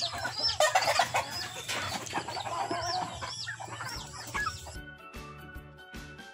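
Free-range chickens calling and clucking while feeding, with many short, high chirps repeating. About four and a half seconds in, background music with a steady beat takes over.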